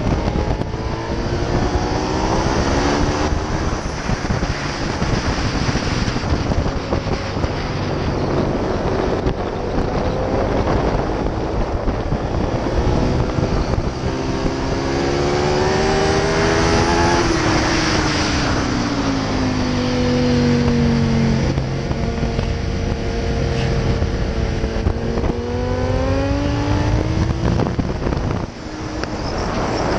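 Ducati Multistrada's V-twin engine running hard at track speed, its pitch climbing under acceleration and falling back several times through the lap, over loud wind rush on the microphone. The level dips briefly near the end before the engine pulls again.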